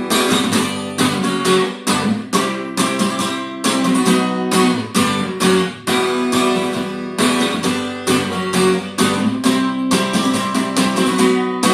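Acoustic guitar strummed in a steady rhythm, chords without singing.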